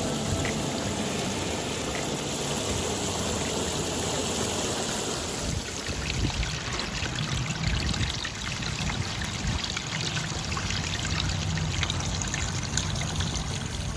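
Water trickling and splashing over the rocks of a small rock waterfall, a steady running sound.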